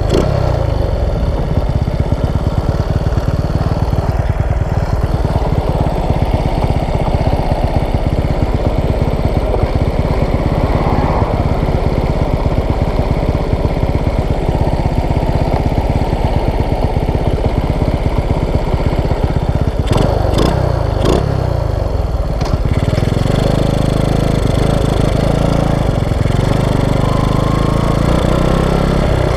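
Honda Wave 125's small single-cylinder four-stroke engine running with a fast, rough pulsing, a few sharp clicks about two-thirds of the way through, then settling into a steadier note.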